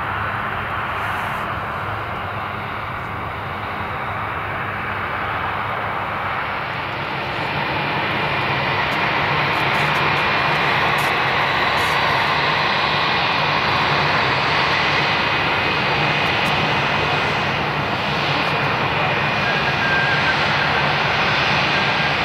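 Airbus A319-132 with two IAE V2500 turbofan engines at taxi power: a steady rushing hum with a thin whine. It grows louder about eight seconds in as the jet taxis closer.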